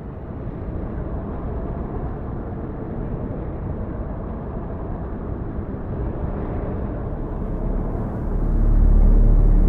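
Cinematic rumble sound effect: a rushing noise fades in and slowly grows louder, then a deep steady rumble with low held tones comes in near the end and is the loudest part.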